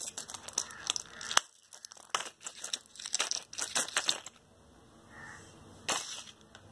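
Foil blister pack of soft-gel capsules crinkling and crackling under the fingers as a capsule is pressed out through the foil. Dense crackles over the first four seconds, then another short burst about six seconds in.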